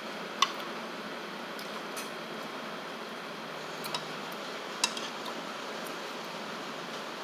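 Eating utensils clinking against dishes a few times, the sharpest clink about half a second in, over steady room noise.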